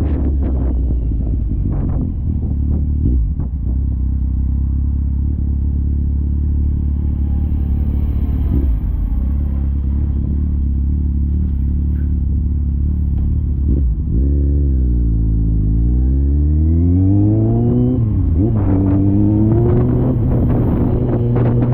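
Wind rumbling on a GoPro Hero 9's microphone over a motorcycle engine. About two-thirds of the way in, the engine note falls and then climbs again, as the bike slows and picks up speed.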